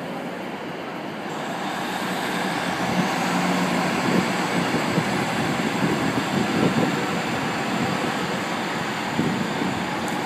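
Class 155 Sprinter diesel multiple unit's Cummins diesel engines running under power as the train pulls away from the platform. The engine sound rises about two seconds in, then holds steady with small surges.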